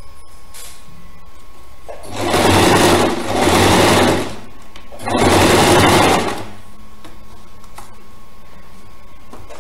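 Electric domestic sewing machine stitching in three short runs: two close together starting about two seconds in, and a third around five seconds in, with pauses between as the fabric is guided along the zipper.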